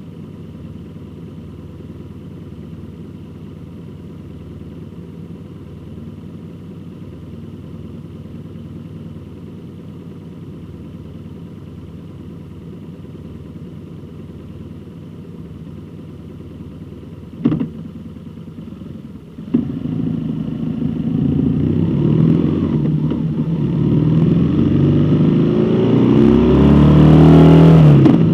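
Vehicle engine idling steadily, then two sharp knocks, after which the engine revs up and pulls away, its pitch rising and falling through the gears as it gets louder.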